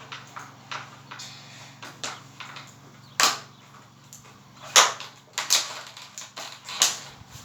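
Irregular short scrapes and knocks of hands working with objects close to the microphone, growing louder from about three seconds in, over a faint steady hum.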